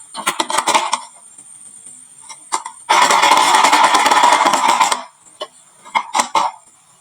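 Glass marbles clattering on a wooden marble run: scattered clicks and knocks, then a dense two-second rattle of many marbles rolling and colliding at once, then a few more clicks.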